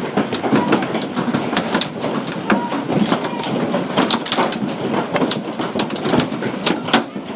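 Large hailstones, described as baseball-size, pelting down hard: a dense, irregular clatter of sharp impacts over a steady roar of falling ice.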